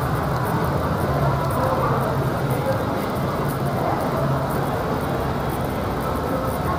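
Steady low hum and rumble of background noise in an enclosed walkway, with faint distant voices.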